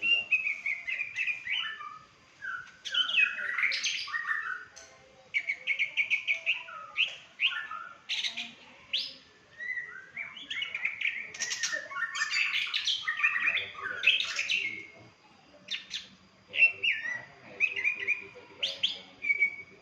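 A songbird singing a varied song of rapid chirps and trills, delivered in phrases broken by short pauses.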